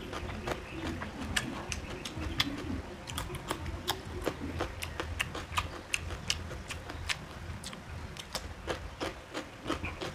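Close-up eating sounds: irregular wet clicks and smacks, several a second, from chewing and from fingers mixing rice on a steel plate, over a steady low hum.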